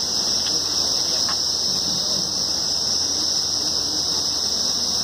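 A steady, high-pitched chorus of cicadas buzzing without a break in forest.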